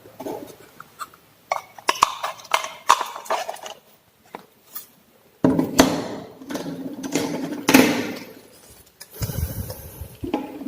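Drill bits and their plastic case being handled, with many sharp clicks, knocks and light metallic rattles, and a denser stretch of handling noise in the second half.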